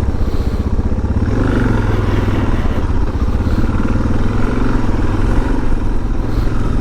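A 650 cc single-cylinder dual-sport motorcycle engine running while riding a rough trail, its note rising and easing a little with the throttle.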